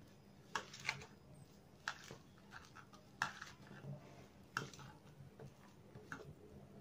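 A hand squeezing and rubbing chopped onion, chillies and spices in a bowl to soften it for peyaju batter: short, irregular soft clicks about once a second, over a steady low hum.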